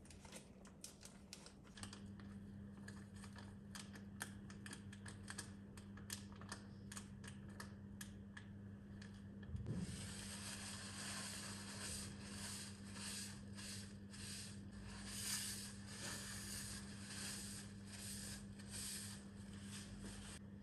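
A bag of flour crinkling as it is handled, a quick run of crisp crackles. About halfway through, this gives way to wiping on a granite countertop, repeated rubbing strokes. A low steady hum runs underneath.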